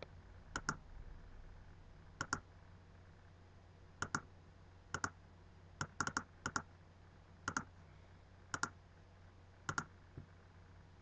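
Computer mouse buttons clicking about a dozen times at uneven intervals, each click a quick double tick.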